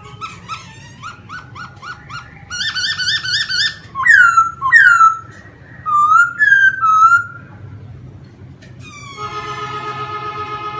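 Laughingthrush singing: a quick run of repeated slurred notes, then loud down-sweeping whistles and rising-falling whistled notes that stop about three quarters of the way through. Held notes of background music sound at the start and return near the end.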